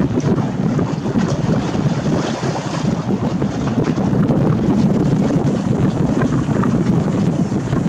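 Wind buffeting the camera's built-in microphone in a steady, loud rumble, with choppy lake water washing underneath.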